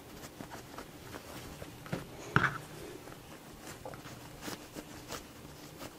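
Fabric rustling as a sewn dog dress is handled and lifted over a cutting mat, with a few soft knocks.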